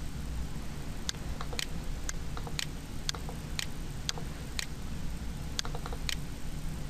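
Sharp clicks at a steady, even pace of about two a second, starting about a second in, with a few fainter clicks between them, over a low steady hum.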